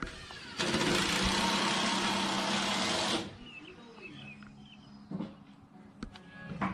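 A loud mechanical whirring, like a small motor or power tool running, starting about half a second in and cutting off abruptly after about two and a half seconds.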